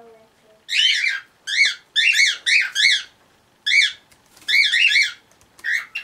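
Cockatiel whistling: bursts of short, high notes that each rise and fall in pitch, repeated quickly several times with short pauses between bursts.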